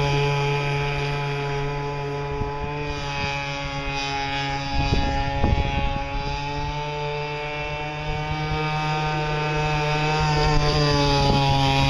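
Echo 21 cc two-stroke gas engine of a radio-controlled speedboat running flat out, a steady high buzz that fades somewhat as the boat runs farther off and grows louder again near the end. A few brief low rumbling noises come about five seconds in.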